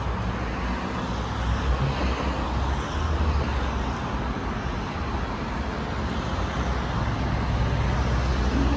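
Steady vehicle running noise with a strong low rumble, growing slightly louder toward the end.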